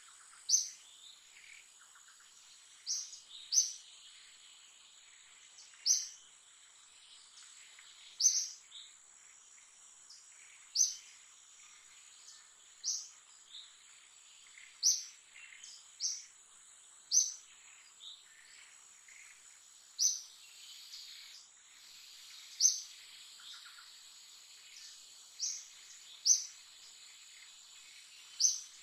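Forest ambience: a steady high-pitched insect drone under short, sharp high chirps that repeat about every two seconds, some louder than others.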